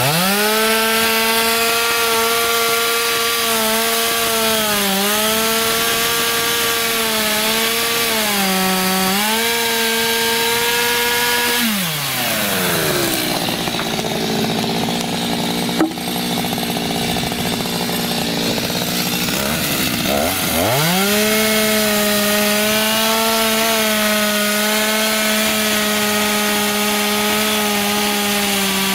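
Two-stroke chainsaw at full throttle cutting through a wooden bridge pile, its engine dipping briefly a few times as it loads up in the wood. About twelve seconds in it drops to idle, then about twenty seconds in it revs up again for another cut and holds until it slows near the end.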